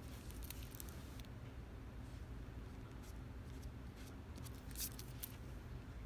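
Drawing pencil scratching on paper in short strokes, in a brief cluster about a second in and another a little before the end, over a faint steady low hum.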